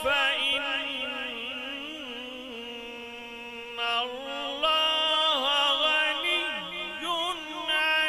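A man's voice reciting the Quran in the melodic tajweed style through a microphone, drawing out long ornamented notes with wavering turns. A softer held note falls in the first half, then louder, more ornamented phrases begin about four seconds in.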